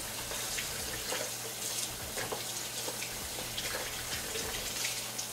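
Tap water running steadily over hands being washed at a sink.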